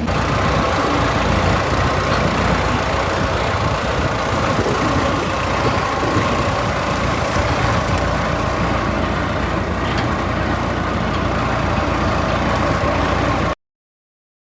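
Kubota SVL75-3 compact track loader's diesel engine running steadily, then cutting off suddenly near the end.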